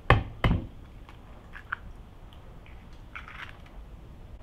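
An egg tapped hard against the rim of a mixing bowl, two sharp cracks close together, followed by faint clicks and crunches of eggshell being handled.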